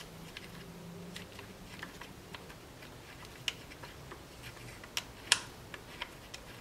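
Scattered light plastic clicks and taps as fingers work at the wiring harness and connector by a diesel engine's glow plug controller, with one sharper click about five seconds in.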